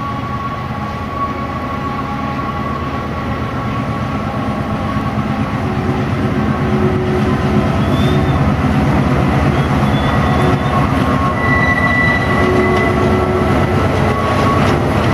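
Diesel locomotive approaching slowly at the head of a goods train of tank wagons, its engine running steadily with a low rumble that grows gradually louder, and brief thin high squeals from the wheels.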